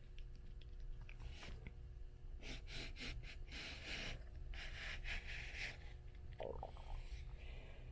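Close-miked breathing, a few heavy breaths in and out, after a few light taps on old books in the first couple of seconds.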